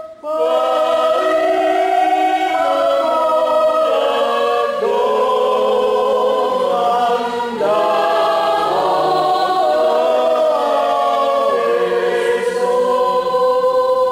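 A group of women singing a hymn together, in long held notes that change pitch every second or so.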